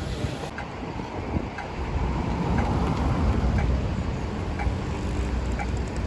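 City street ambience: a steady low rumble of traffic with wind buffeting the microphone, and a faint short tick about once a second.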